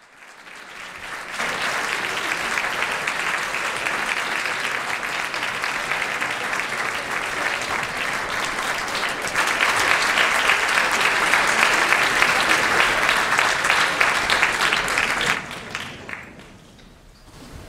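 Audience applauding: the clapping builds up over the first second or two, grows louder about nine seconds in, then dies away near the end.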